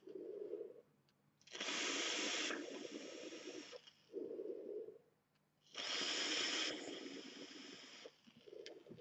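A man drawing on and blowing out vapor from a rebuildable tank atomizer with its airflow wide open. There are two loud rushes of breath, each about a second long and about four seconds apart, with softer breathing between them.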